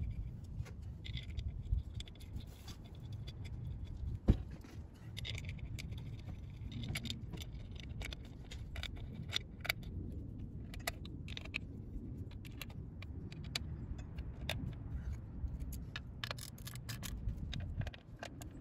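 Small metallic clicks and light rattles of screws and a hand tool as the primary derby cover screws on a Harley-Davidson are started and run in, with a single sharper knock about four seconds in, over a low steady rumble.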